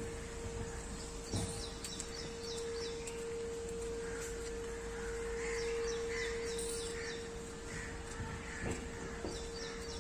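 Park ambience: birds chirping and calling in short bursts over a steady, even hum.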